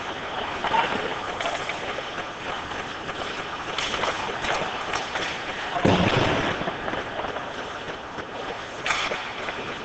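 Ice hockey play in an indoor rink: a steady wash of hall noise with skates on the ice and several sharp clacks of sticks and puck, the loudest a heavy thud about six seconds in.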